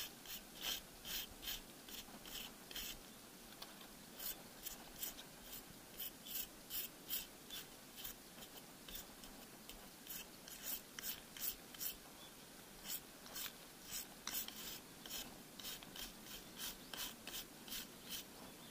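A wire brush scrubbing moss off the top of a concrete block wall, rasping in runs of quick back-and-forth strokes, about three a second, with short pauses. The bristles are wearing away the weathered concrete surface.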